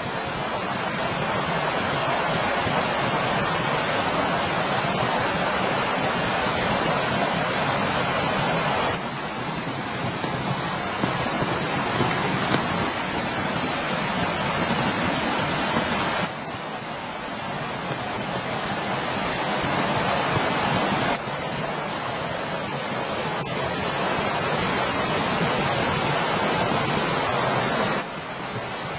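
Steady heavy rain, a dense even hiss, stepping abruptly up or down in level four times.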